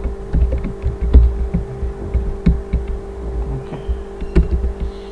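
Typing on a computer keyboard: irregular keystroke clicks, each with a low thump, over a steady hum.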